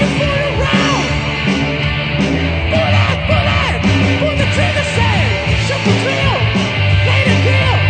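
Rock band playing live: guitar, bass and drums under a singer's line that slides up and down in pitch.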